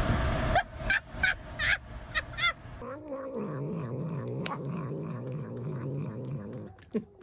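A cat giving several short yowling meows, then a low, wavering growl held for several seconds while its claws are being clipped, with one sharp click partway through.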